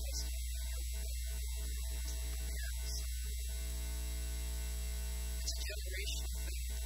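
Loud, steady electrical mains hum with a buzz reaching high up. A voice breaks through underneath only in garbled snatches, mostly in the first half and again near the end.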